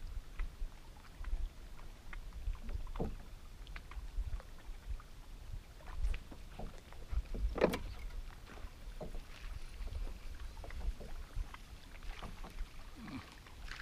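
Water slapping against the hull of a Nitro bass boat, with low wind rumble on the microphone and scattered light knocks and ticks; one louder knock about eight seconds in.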